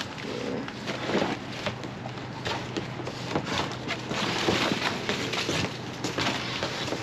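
Trash in a dumpster being rummaged with a long-handled tool: irregular rustling, crinkling and scraping of cardboard and plastic bags.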